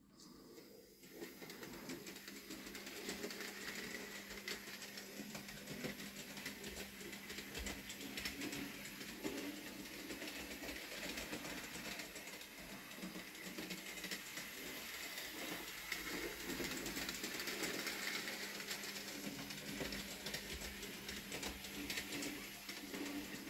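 Small electric motor of a Bachmann Rheneas model locomotive whirring as it runs with its trucks and box van, over a rapid fine clicking of wheels on the track. It grows louder over the first two seconds, then runs steadily.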